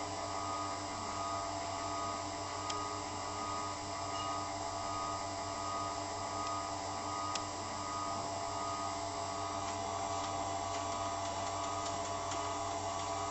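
Steady electric hum of a CNC knife grinding machine's motor running, with two faint clicks, about three and seven seconds in.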